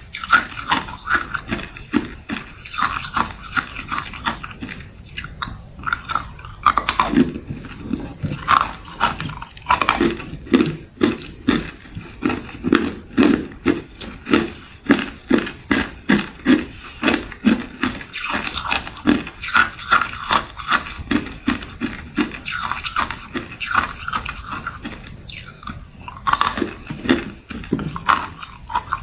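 Hard clear ice cubes being bitten and chewed: a long run of sharp crunches, about two a second at their most regular, with short pauses between mouthfuls.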